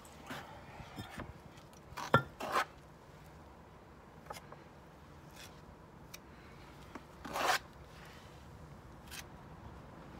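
Steel trowel scraping and scooping mortar, a few short scrapes with a sharp tap about two seconds in and a longer scrape about seven and a half seconds in.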